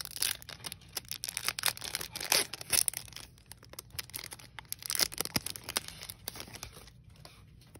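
The foil wrapper of a Pokémon trading card booster pack crinkling and tearing as it is pulled open by hand. It makes a dense run of sharp crackles that thins out to a few faint ones about two thirds of the way through.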